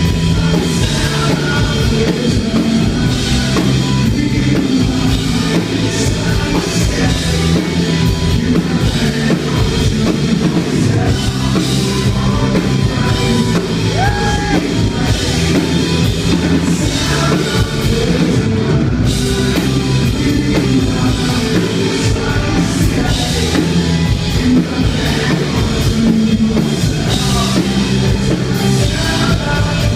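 A rock band playing loud at a live concert: a drum kit keeps the beat under the band, with a singer's voice.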